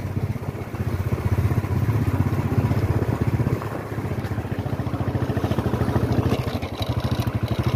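Royal Enfield Bullet 350's single-cylinder engine running as the motorcycle rides along, a quick steady thumping beat that eases off briefly about three and a half seconds in.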